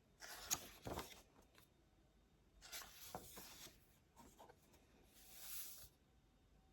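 Faint scratching and rustling on paper in three short bouts, each about a second long.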